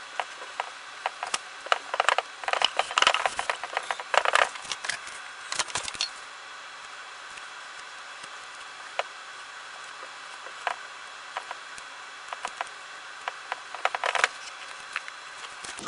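Felt lining being handled and fitted into a wooden toolbox drawer: scattered light clicks and taps with short scraping rustles, busiest in the first six seconds and again briefly near the end.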